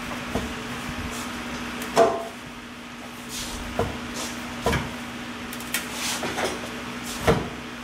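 Scattered wooden knocks and clunks as a wooden board is handled and shifted against the car's undercarriage, the loudest about two seconds in. A steady low hum runs underneath.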